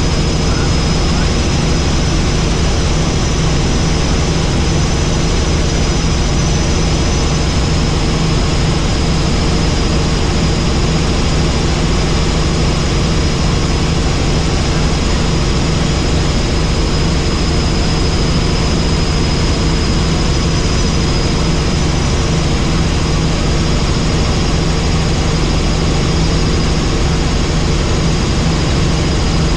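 Helicopter in flight: the engine and rotor run at a steady, loud level, with a thin high whine held constant over a deep throbbing noise.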